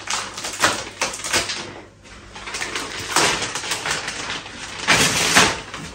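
Clear plastic wrapping being pulled off a new rolled rug, crinkling and rustling in several uneven swells.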